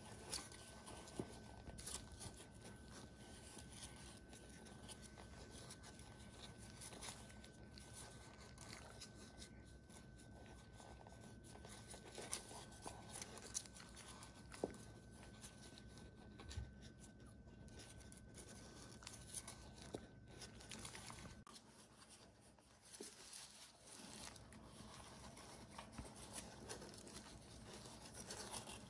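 Near silence: room tone with a faint steady high whine that cuts off about two-thirds of the way through, and a few faint soft clicks and rustles.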